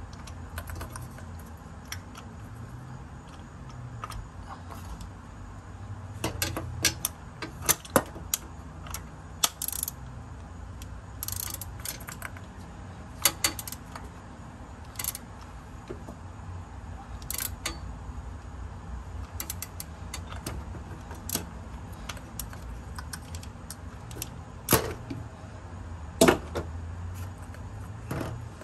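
Socket wrench with an extension and spark plug socket clicking and clinking as spark plugs are threaded in and tightened. The sharp metallic clicks come irregularly, some in quick clusters, and the loudest strikes fall about eight seconds in and near the end.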